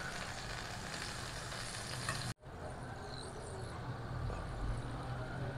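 Marinated fish pieces shallow-frying in hot oil in a grill pan, a steady sizzle over a low hum. The sound drops out for an instant a little over two seconds in.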